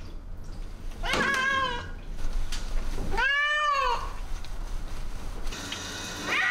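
Persian cat meowing twice in protest at being bathed, two long calls about two seconds apart, each rising then falling in pitch. Near the end, a hiss of spray water from a hand sprayer starts.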